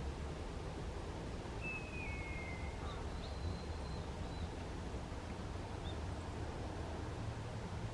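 Eastern buzzard giving one drawn-out call that falls in pitch, about a second and a half in, followed by a thinner, higher note, over a steady low rumble.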